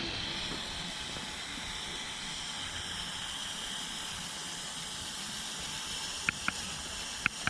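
Small electric motors and plastic gearing of a Lego RC crawler running, a steady high whine with hiss. A few sharp plastic clicks come near the end.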